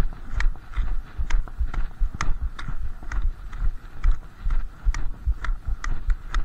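Nordic walking poles' metal tips clicking sharply on the snowy, frozen sidewalk at a steady walking pace, about twice a second, over the dull thuds of footsteps.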